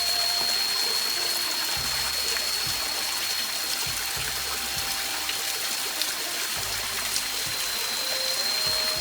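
Flowing water rushing steadily, with a steady high-pitched tone running through it.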